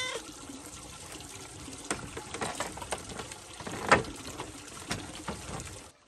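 Bundles of taro stalks being handled and sorted on a woven bamboo tray: a steady rustling with scattered clicks and light snaps, the sharpest about four seconds in.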